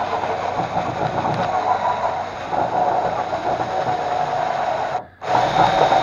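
Power drill running steadily as its bit bores into a rusted, seized steel screw, drilling a pilot hole through it for removal. The drill stops briefly about five seconds in and then starts again.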